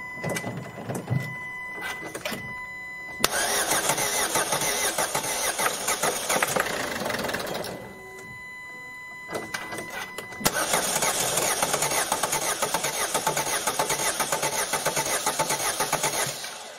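Ford 1.5 TDCi diesel engine cranked on the starter twice, for about four and then six seconds, with a fast even beat of compression strokes. It does not catch: the fuel system is still airlocked after bleeding.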